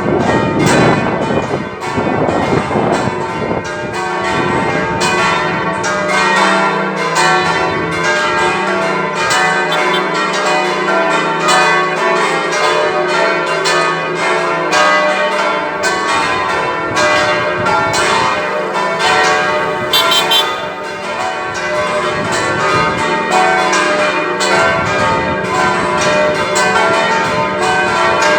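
A ring of six church bells pealing, strokes following one another several times a second, their tones overlapping and ringing on.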